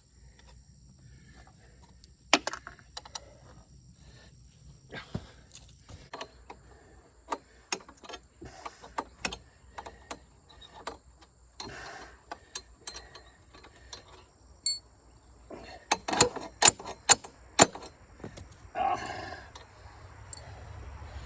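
Irregular sharp knocks and clanks of metal parts and tools being handled, with a quick run of the loudest about three-quarters of the way through. A faint steady high whine runs under it.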